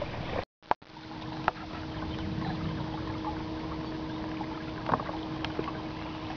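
Inflatable boat under way, pushed by an electric outboard motor with a steady high hum, over water noise along the hull, with a few light taps. The sound cuts out completely for a moment about half a second in.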